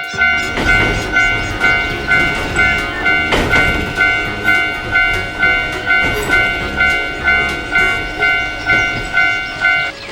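Japanese railroad crossing bell ringing its steady electronic "kan-kan", a bit over two strikes a second, while a train passes with a rumbling clatter; the bell stops near the end.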